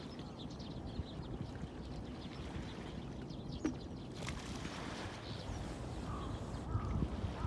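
Outdoor nature ambience: a steady low rumbling noise with a few faint, short bird calls, the clearest near the end.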